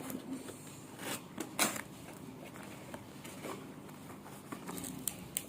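Cardboard packaging being handled: faint scraping and rustling with a few sharp clicks and taps as an inner box is pushed out of its outer box.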